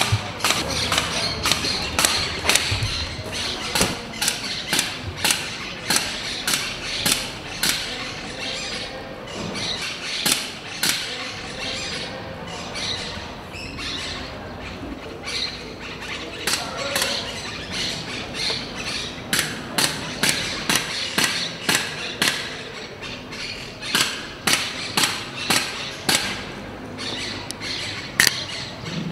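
Repeated sharp knocks or strikes, about three a second in irregular runs with short lulls between them.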